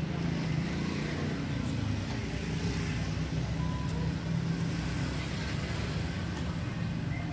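A motor vehicle engine running steadily, a low hum with road-traffic noise behind it.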